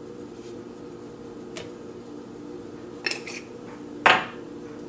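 Small glass spice jar clinking and knocking on a stone countertop: a few light ticks, a short cluster of clinks about three seconds in, then one sharp knock about four seconds in.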